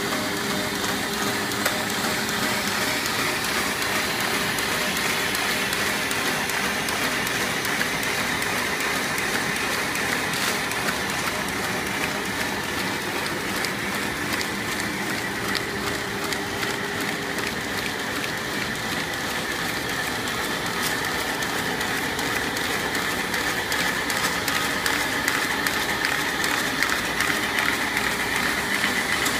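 2008 Baumfolder model 1320-H 20-inch continuous-feed buckle folder running steadily, feeding and folding parchment paper sheets: a rapid, even clatter of rollers and paper over a constant mechanical hum and whine.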